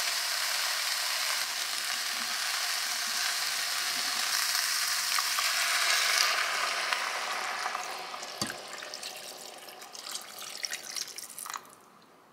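Beef and vegetables sizzling in a pot. The sizzle fades after water is poured in about six seconds in, and a spoon stirring makes scattered knocks and scrapes until the sound drops away just before the end.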